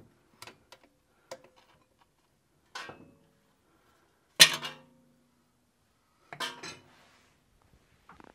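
A string of separate metal clanks and clinks as steel parts and tools are handled, the loudest about halfway through with a brief ring.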